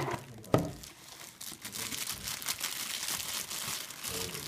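Clear plastic bag crinkling as it is handled around the boxed speaker crate, with a sharp knock about half a second in.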